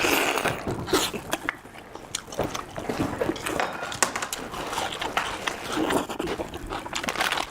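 Close-up eating and handling noises: irregular clicks and small knocks with biting and chewing.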